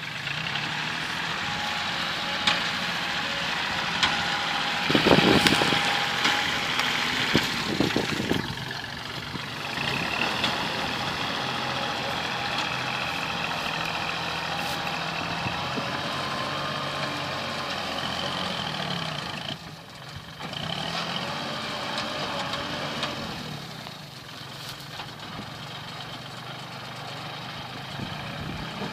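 Kubota L3608 tractor's diesel engine running under load while it pushes soil with its front blade. The sound grows louder for a few seconds about five seconds in, dips briefly about twenty seconds in, and is quieter in the last few seconds.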